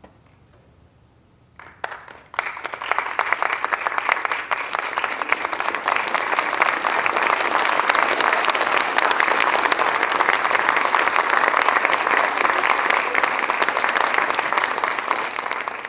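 Audience applauding: the clapping breaks out about two seconds in, builds quickly and then holds steady.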